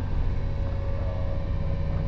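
Interior sound of a 115 series electric multiple unit's motor car: a steady low rumble with a constant hum.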